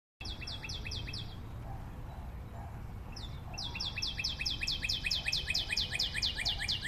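A bird singing a rapid series of short, falling chirps, about six a second. The song breaks off about a second in and starts again near the middle, running on steadily over a low, steady background rumble.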